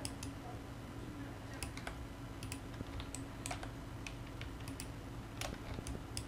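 Irregular, fairly quiet clicks from a computer mouse and keyboard, about a dozen, over a steady low hum.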